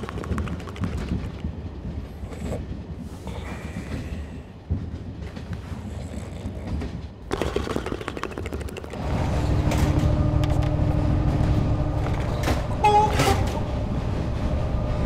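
Passenger train carriage running: a steady low rumble that gets louder about nine seconds in, with a brief higher tone near thirteen seconds.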